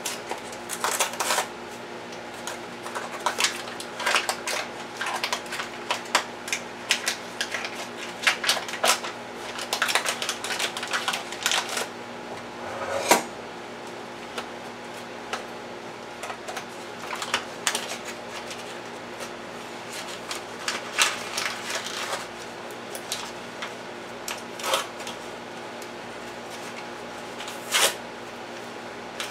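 A cardboard corn-muffin-mix box being opened and its inner paper bag torn and crinkled: irregular crackles and rips, the loudest about halfway through and near the end. A faint steady hum lies underneath.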